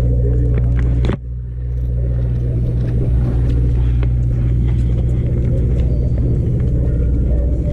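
Sport-fishing boat's engines running with a steady low drone, which drops out sharply about a second in and then comes back.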